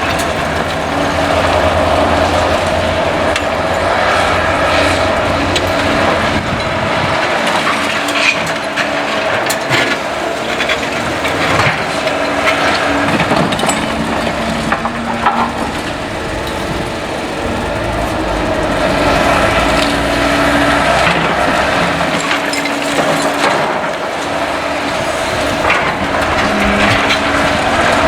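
Cat excavators' diesel engines running under varying load, with repeated sharp cracks, knocks and crunches of demolition debris being broken and moved.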